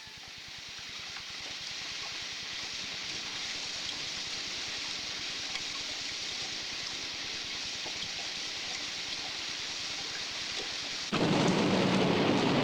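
Steady rain sound effect, a hiss that fades in over the first couple of seconds. About eleven seconds in it cuts abruptly to a louder, deeper rushing noise.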